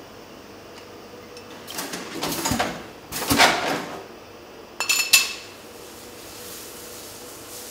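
Cava bottles being handled: two short noisy rushes, the second louder, then a quick pair of sharp, ringing glass-and-metal clinks about five seconds in.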